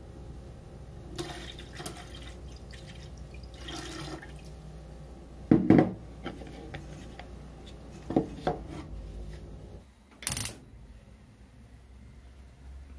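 Water and milk poured into a cooking pan, with several short knocks of containers and utensils against it; the loudest knock comes about five and a half seconds in.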